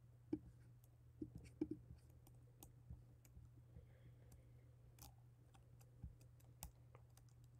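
Near silence: room tone with a low steady hum and a few faint, scattered clicks.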